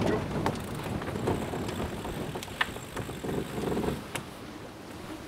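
Wind and water rushing past a Catalina 37 sailboat's hull under sail, with a few scattered light clicks; the rush eases after about four seconds.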